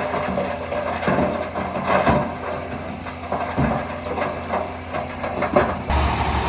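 Heavy diesel engine of earthmoving equipment running steadily, with irregular knocks and clanks over it. The engine sound changes abruptly near the end.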